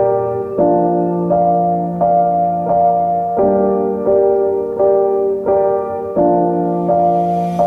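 Background piano music: a gentle keyboard melody over sustained chords, notes starting about every three quarters of a second.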